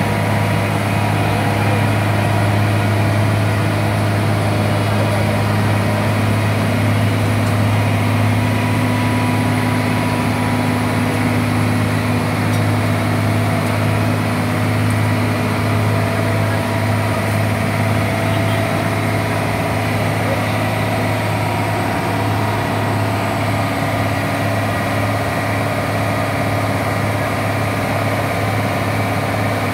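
Wirtgen W 195 cold milling machine working on the road, its heavy diesel engine running with a steady deep drone.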